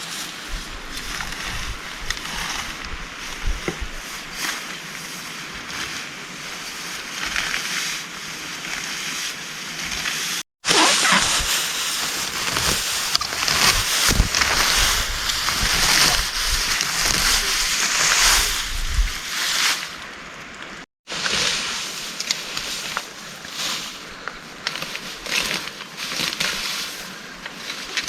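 Heavy rain pouring, a dense hiss thick with the patter of drops. It cuts out briefly about ten seconds in and comes back louder, then cuts out again near twenty seconds and returns somewhat quieter.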